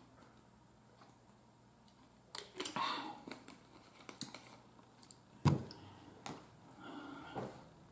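Plastic drink bottle being handled and set down: a cluster of crinkly clicks, a few sharp ticks, then one solid thump about two-thirds of the way through, followed by soft chewing and mouth sounds.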